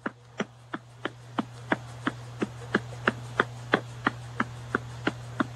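A steady series of short, light clicks, evenly spaced at about three a second, over a steady low hum.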